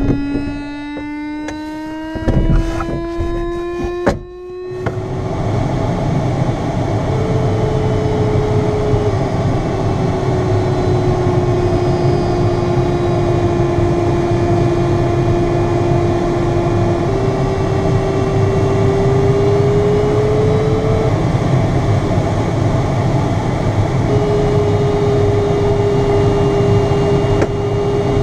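A glider's landing roll on grass with a few knocks and a rising electronic tone. About four seconds in this changes to a steady rush of air in the glider cockpit in flight, under a glider audio variometer's continuous tone that shifts up and down in pitch every few seconds.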